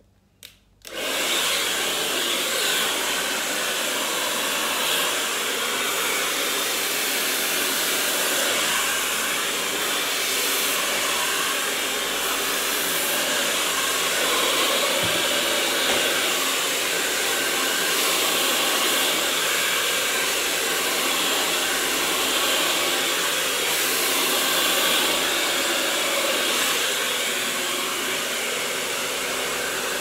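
Black Eagle hair dryer switched on after a short click about a second in, then running steadily with an even, loud rush of air.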